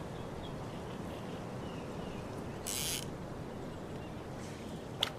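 Steady outdoor background rush with a few faint bird calls, a short high hiss about three seconds in and a sharp click near the end.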